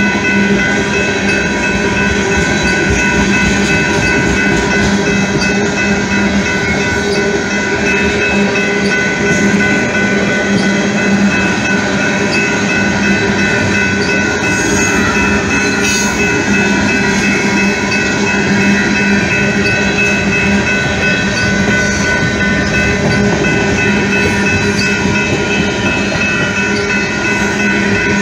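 Freight train of tank cars rolling past at a level crossing, with steady wheel noise and faint regular clicks from the rail joints. Several steady tones sound over it throughout, which fits the crossing bell ringing while the signals are active.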